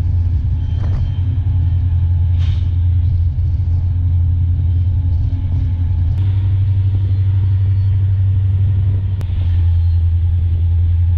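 Moving iron ore train: a loud, steady low rumble heard from on top of an open ore wagon, with a few faint knocks.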